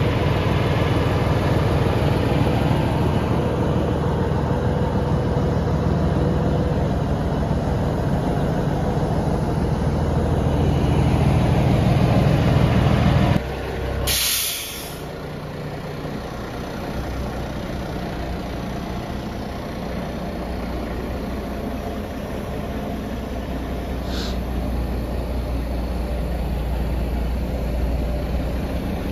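Heavy truck diesel engine running steadily, then a loud hiss of air brakes about fourteen seconds in. The engine idles more quietly after that, with a brief second air hiss later on.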